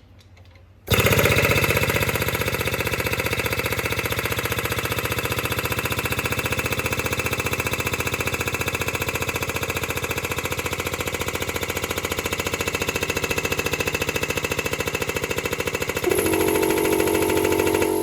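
Small piston air compressor running with a fast, even chugging pulse, starting abruptly about a second in. A steady hum joins near the end.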